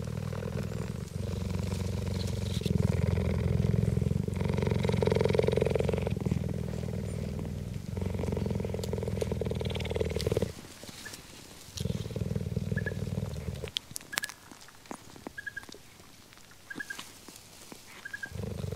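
Cheetah purring while the cubs nurse: a steady, pulsing low purr that breaks off about ten seconds in, comes back for about two seconds, then stops. A few short, faint high chirps follow near the end.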